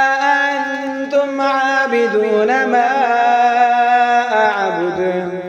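Quranic recitation chanted in a melodic style: one voice holds long drawn-out notes with ornamented turns in pitch, trailing off near the end into a pause for breath.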